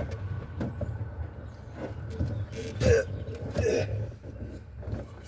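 A man clearing his throat twice, about three seconds in, over a steady low rumble.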